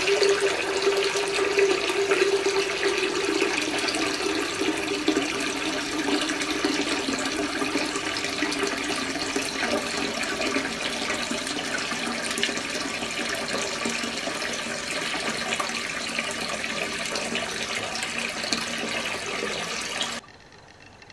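Tap water running into a bathroom sink basin that is partly full, splashing and pouring into the standing water, with a low tone that slowly drops in pitch over the first few seconds. The water sound cuts off suddenly about a second before the end, leaving a faint hum.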